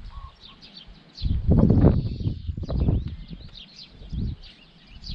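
Small birds chirping repeatedly in the background, with louder low, rough noises about a second in and again around three and four seconds in.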